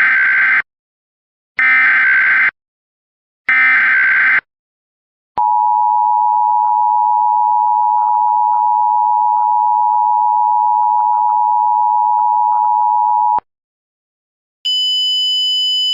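Emergency Alert System signals: three short bursts of SAME digital data tones, then the steady attention tone held for about eight seconds. It cuts off, and near the end a higher steady tone begins.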